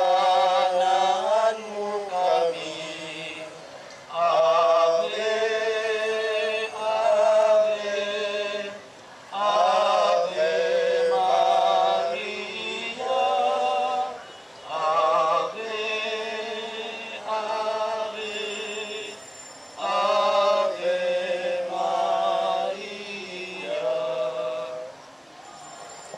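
A small group of voices singing a Catholic hymn in long held phrases, with short breaths between them.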